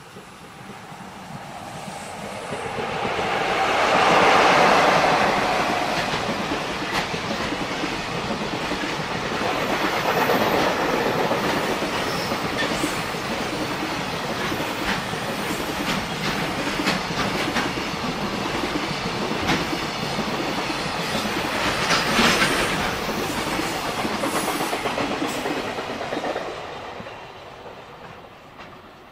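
An electric freight locomotive approaching and passing, followed by a long train of container wagons rolling by with a steady clickety-clack of wheels over rail joints, then fading away near the end.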